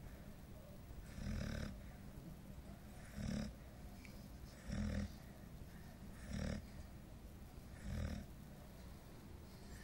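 Nine-month-old golden retriever snoring in her sleep: five short snores at an even pace, about one every one and a half seconds.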